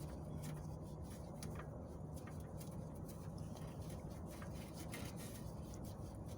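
Faint small clicks and scraping as a pre-loosened oil filter is spun off the engine by hand, over a steady low hum.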